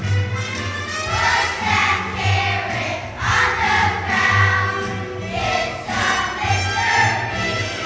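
Children's choir singing a holiday song together over instrumental accompaniment with a steady bass line.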